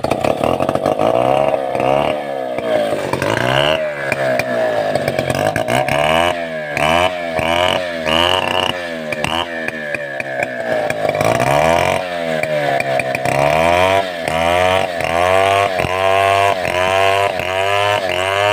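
Stihl 070 two-stroke chainsaw running hard, its engine pitch dipping and recovering over and over as the chain bogs and frees in the wood. The swings come quicker toward the end.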